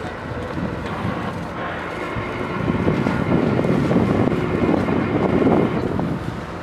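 Borewell drilling rig's engine running steadily, with a louder rough rush of noise from about two and a half seconds in until nearly six seconds.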